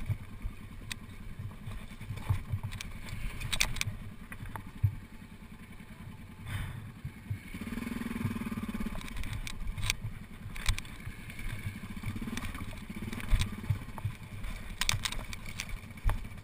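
Single-cylinder dual-sport motorcycle engine running at low revs, with repeated knocks and clatter as the bike goes over loose rock. The engine note picks up briefly about eight seconds in and again a few seconds later.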